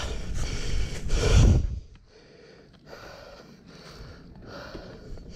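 Heavy, labored breathing of a mountain biker close to the microphone, a string of hard breaths under a second apart; the rider has a chest cold that makes his breathing extra heavy. For the first two seconds a low rumble of riding over the leaf-covered dirt trail runs under it, then drops away.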